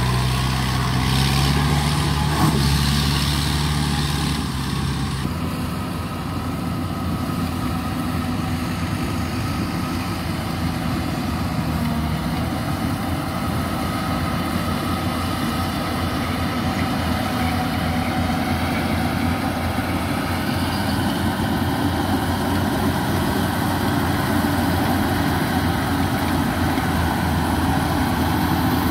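Yanmar 850 rice combine harvester's diesel engine running steadily. For the first five seconds it is close, with a clear low hum; after that it is farther off, an even drone as the machine cuts rice.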